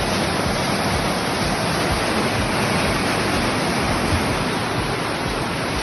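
Loud, steady rushing of water, an even wash of noise with no pitch or rhythm.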